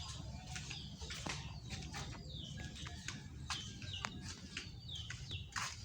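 Small birds chirping over and over, each chirp short and falling in pitch, with scattered sharp clicks among them.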